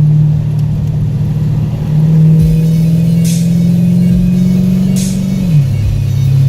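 Vehicle engine running under steady load, its drone slowly rising in pitch, then dropping suddenly about five and a half seconds in as the revs fall.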